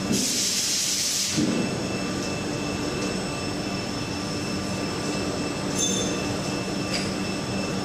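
CNC strobe saw blade grinder running while sharpening a circular saw blade, its motors giving a steady whine. A loud hiss fills the first second and a half, and light clicks come near the end.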